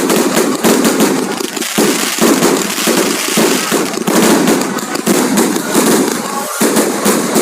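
Fireworks and firecrackers going off in a dense, continuous barrage of rapid overlapping bangs and crackles.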